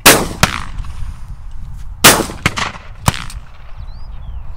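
12-bore over-and-under shotgun shots at clay targets: a loud shot right at the start and a fainter one just after, then two more loud shots about a second apart, around two and three seconds in. Each report cracks sharply and dies away over a steady low rumble.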